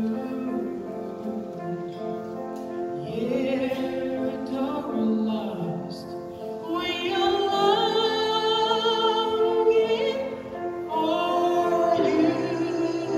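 A woman singing a solo song into a handheld microphone, amplified, her held notes wavering with vibrato, over sustained chords of instrumental accompaniment. Her voice swells strongest about halfway through.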